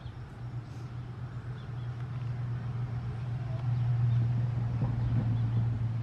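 Low, steady engine rumble of a motor vehicle, growing louder to a peak about four to five seconds in and then easing off, as a vehicle passes.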